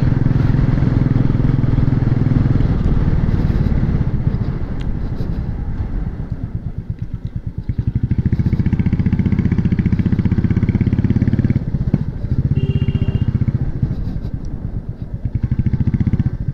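Royal Enfield Meteor 350's single-cylinder engine running as the motorcycle is ridden, its exhaust pulsing evenly. It eases off about six seconds in, picks up again, and eases off briefly once more near the end.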